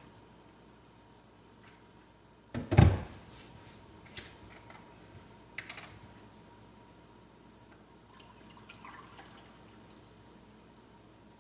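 Kitchen containers being handled while milk is measured out: a loud double knock about two and a half seconds in, like a cup or carton set down hard on the counter, then a few light clicks and taps.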